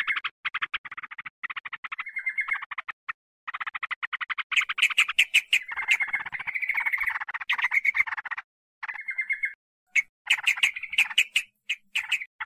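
Yellow-vented bulbuls (trucukan) chattering, a bird-lure recording of fast, harsh, repeated notes. The calls come in runs broken by short pauses and are densest about halfway through.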